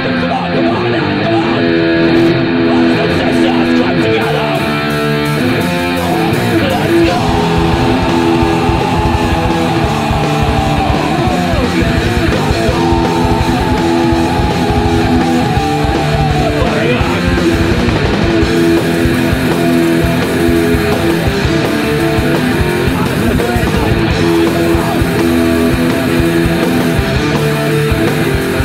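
A live hardcore band playing a loud song with distorted electric guitar. In the middle a high note is held twice for several seconds, each time sliding down at its end.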